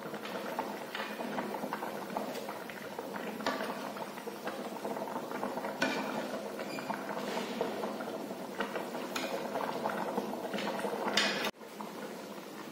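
Pork stew bubbling in a metal wok, a steady crackling simmer, with a steel ladle stirring and clinking against the pan now and then. The sound cuts off sharply near the end.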